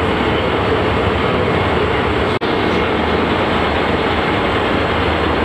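Ship's hydraulic steering gear running, its electric pump motors making a loud, steady drone with a constant hum over a low rumble. The noise drops out for an instant about halfway through.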